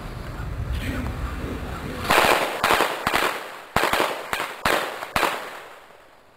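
Firecrackers going off: an irregular string of about nine sharp bangs with crackling between them. It starts about two seconds in and stops a little after five seconds, after a low rumbling noise at the start.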